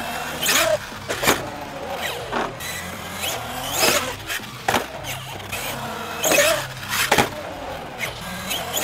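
Battery-electric Traxxas Sledge RC monster truck with a brushless motor, whining up and down as it accelerates over the concrete. Several sharp knocks come as it hits the ramps and lands.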